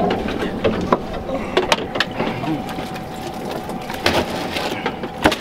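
Knocks and clatter of a boat's in-deck fish box: the hatch lid is opened and a barracuda is put in on the ice, over a steady hum.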